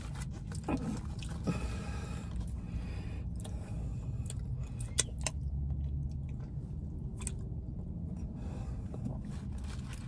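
A person chewing a mouthful of fried chicken and glazed donut sandwich, with a few sharp clicks about a second in, around five seconds and around seven seconds, over a low steady hum.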